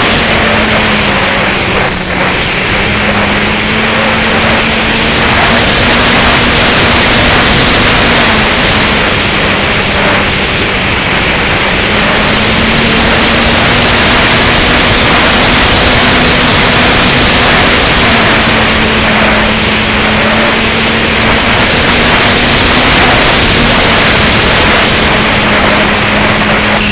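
Rushing wind and airflow noise on the onboard camera of a Flyzone Seawind RC plane in flight, over the steady hum of its electric motor. The motor's pitch steps slightly up and down several times as the throttle changes.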